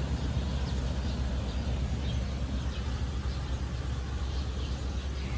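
Outdoor ambience: a steady low rumble, with faint bird chirps scattered through.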